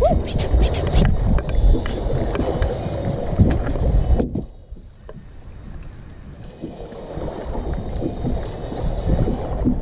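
Wind buffeting the microphone on an open boat, with scattered knocks and rustles of handling on deck; the wind drops off suddenly about four seconds in and slowly builds again.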